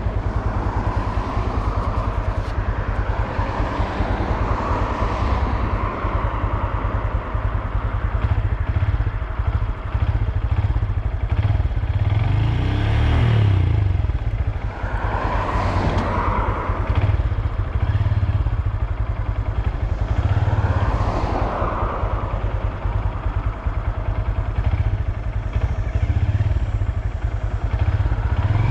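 2022 Honda Grom's 125 cc single-cylinder engine running continuously, its revs rising and falling a few times.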